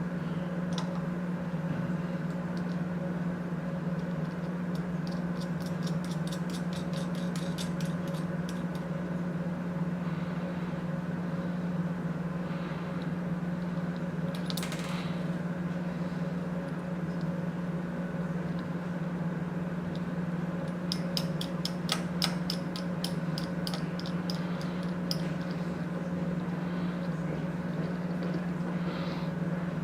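A steady low hum with two spells of rapid small metallic clicking, a few seconds each, from M4 nuts being fitted onto the screws of the limit switch assembly. There is also a brief rustle of handling about halfway through.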